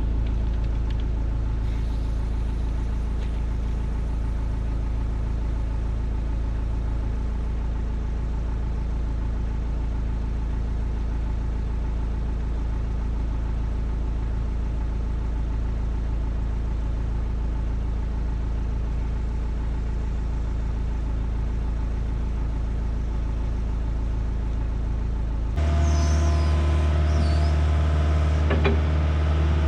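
Diesel engine of heavy earthmoving equipment running steadily. Near the end the sound cuts abruptly to a louder, deeper engine note with a few clicks and short squeaks.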